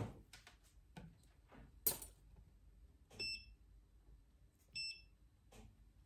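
Several sharp clicks and taps of a test probe and tools being handled on an electronics workbench, the loudest about two seconds in. Then two short electronic beeps from bench test equipment, about a second and a half apart.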